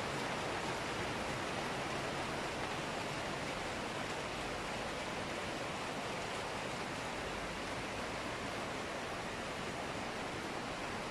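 Steady rain falling: a constant, even hiss with no single drops standing out.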